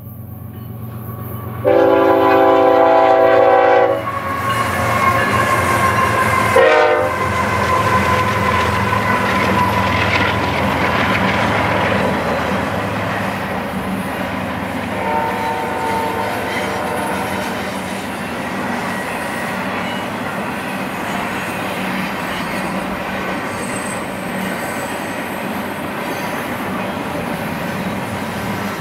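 Diesel freight locomotive air horn sounds a long blast about two seconds in, a short toot a few seconds later, and a fainter blast about fifteen seconds in, as a double-stack intermodal freight train approaches and passes. Between the blasts and after them there is the steady rumble and clatter of the locomotives and loaded container well cars rolling by.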